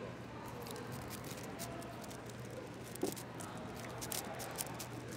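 6x6 speedcube (AoShi WRM) being turned fast, a quick run of plastic clicks and rattles from its turning layers, with one louder knock about three seconds in. A steady low hum underneath.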